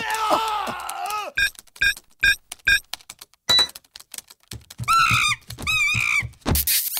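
Cartoon sound effects of a monkey: a sliding hoot at first, then four short chirps and a run of clicks, then two warbling screeches with a fast wobble in pitch. A quick swoosh comes near the end.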